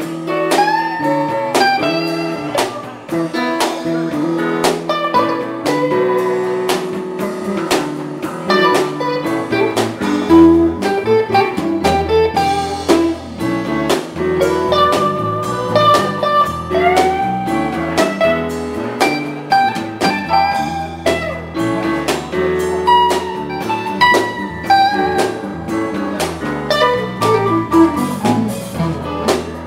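A live blues band playing an instrumental passage: a lead guitar with string bends over drums, bass and keyboards.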